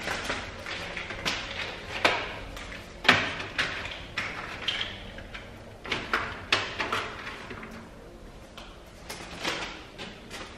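Food containers and fridge parts being handled and set down while a refrigerator is restocked: irregular knocks, clicks and clatter, the loudest knock about three seconds in.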